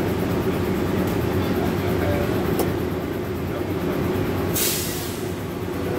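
Steady low hum of an airport people-mover train car standing at a station, heard from inside the car, with faint passenger voices. A short hiss comes about four and a half seconds in.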